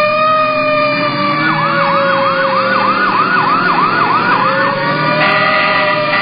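Emergency vehicle siren with a slow wail that falls and then rises again. For about three seconds in the middle, a fast yelping warble of about three sweeps a second is layered over it, and a steady higher tone joins near the end.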